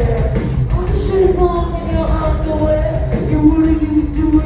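Indie rock band playing live: electric guitars, bass and drums under a sung vocal melody, heard through the hall from the audience.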